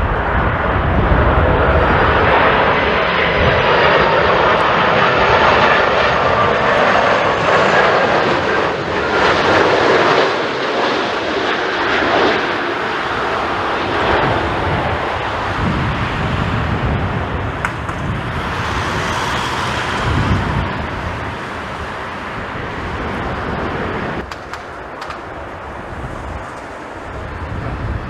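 Jet airliner passing close, its engines' roar loudest in the first half and easing off later, with a faint high turbine whine early on. Gusty wind buffets the microphone.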